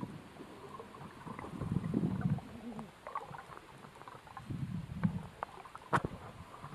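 Muffled water movement heard through an underwater camera housing: low rumbling swells that come and go, with a few faint clicks and one sharper click near the end.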